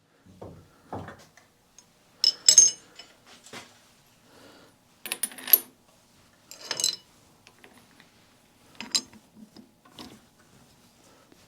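Metal tools and parts clinking and clanking as they are handled and set down, a series of separate sharp knocks with pauses between them. This is the setup of a lathe to bore a tappet guide block, with the lathe not yet running.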